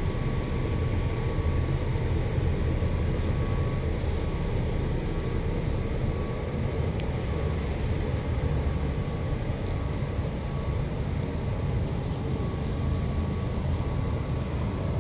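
A cargo tricycle's 200cc air-cooled single-cylinder engine running steadily: a low, even rumble with a faint steady whine above it.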